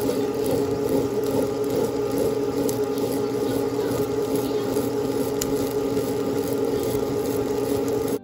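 Tabletop wet grinder running steadily, its two roller stones turning in the rotating stainless steel drum as they grind soaked millet into idli batter.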